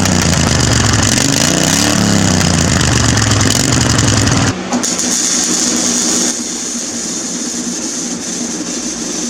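Briggs & Stratton V-twin engine of a Husqvarna zero-turn mower running through a loud custom open exhaust, revved up and down a few times. About four and a half seconds in it changes abruptly to a quieter, steady run.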